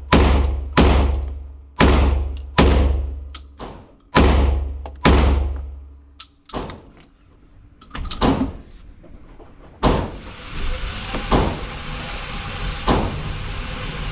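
Beretta 1301 Tactical semi-automatic 12-gauge shotgun fired rapidly with buckshot: six loud shots about a second apart, each with a long ringing decay. A few smaller clicks follow, then a steady rushing noise from about ten seconds in.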